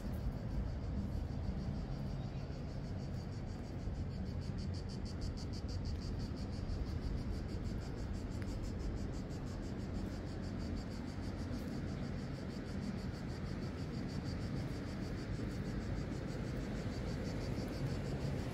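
Cicadas singing, a high, rapidly pulsing buzz, over a steady low outdoor rumble.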